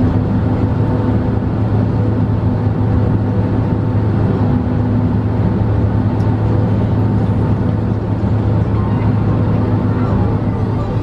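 Steady cabin noise of a Boeing 767-300 taxiing on the ground, its jet engines running at low power with a constant low hum.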